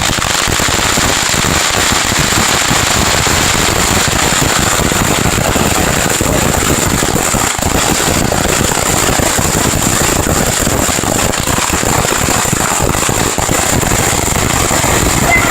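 Fireworks going off in a dense, unbroken crackle that starts suddenly, with a steady high hiss underneath.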